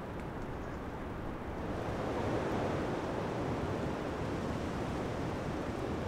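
Wind rushing steadily outdoors, swelling a little about two seconds in.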